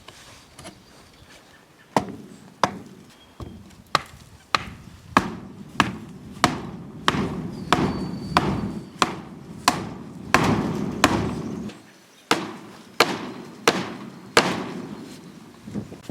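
A hammer pounding a wooden form stake into the ground, steady blows about one every two-thirds of a second, with a short break near twelve seconds.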